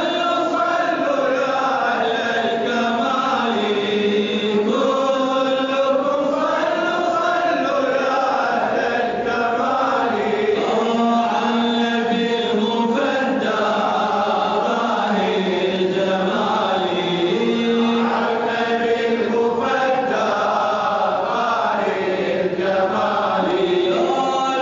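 Male voice chanting an Arabic Islamic praise song (madih), in long held notes that bend and ornament the melody without break.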